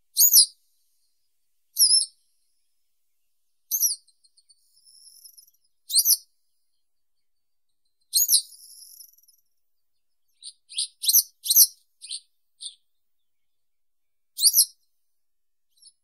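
Western yellow wagtail singing: short, high, sharp notes about every two seconds, with a quick run of several shorter notes about two-thirds of the way through.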